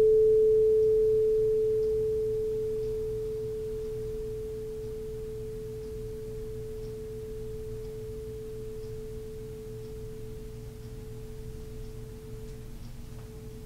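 Quartz crystal singing bowl ringing one pure, steady tone that fades over the first few seconds and then rings on quietly.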